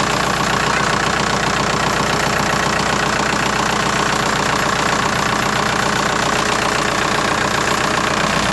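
Kubota tractor's diesel engine idling steadily.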